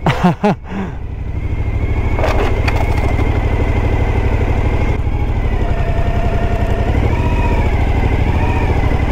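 Suzuki motorcycle engine running while riding slowly over a rough dirt track. It picks up about a second or two in, then runs steadily at low speed.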